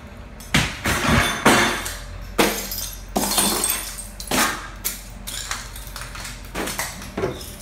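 Footsteps crunching and scuffing through debris on a littered tile floor, in irregular bursts about once or twice a second, over a steady low hum.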